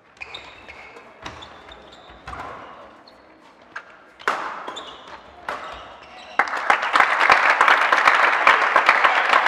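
Badminton rally: sharp racket-on-shuttlecock hits about a second apart, with shoes squeaking on the court floor. About six and a half seconds in, as the point is won, loud clapping breaks out and carries on.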